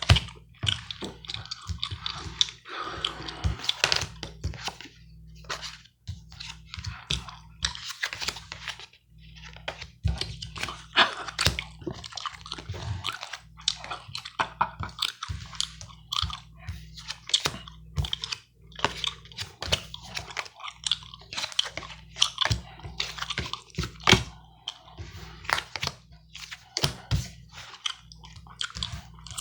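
Gum chewing close to the microphone: dense, irregular wet smacks and clicks, mixed with the snaps and slides of playing cards being handled, over a low steady electrical hum.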